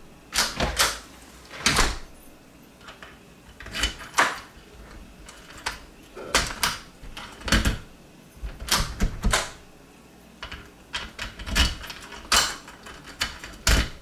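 A newly installed door lockset being tried with a key: irregular sharp metallic clicks and clacks, about a dozen, as the key goes in and the lock and latch are worked. The lock is working.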